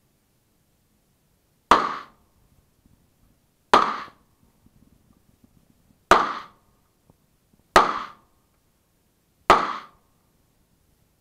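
Five pistol shots from a Glock 34 firing 9×19 mm Luger FMJ rounds, spaced about two seconds apart, each with a short echo trailing off.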